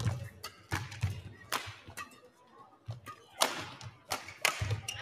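Badminton rally: rackets strike the shuttlecock in sharp cracks about once a second, with low thuds of the players' footwork on the court.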